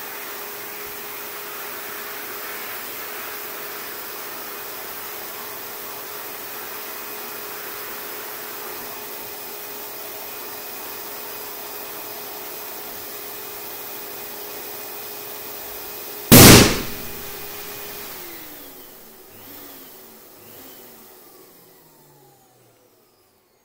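Electric air pump running steadily as it inflates a balloon, until the balloon bursts with one very loud pop about 16 seconds in. The pump motor then winds down, its pitch falling over the last few seconds.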